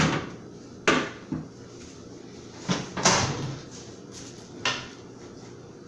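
Kitchen clatter: about six separate knocks and clunks of things being moved and set down at the counter, each dying away quickly, the loudest near the start, about a second in and about three seconds in.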